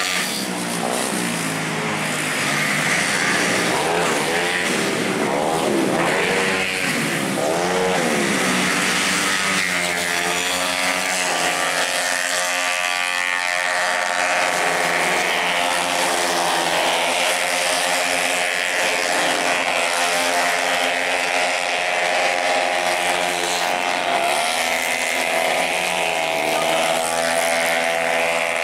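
Several racing automatic scooters running flat out past the track, their engine notes rising and falling and overlapping as the bikes go by and ease off and open up again.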